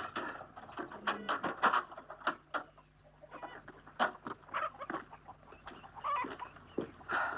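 Chickens clucking, a string of short, irregular calls.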